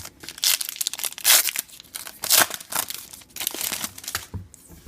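Foil wrapper of a trading card pack being torn open and crinkled by hand: several loud crinkling tears about a second apart among lighter rustling.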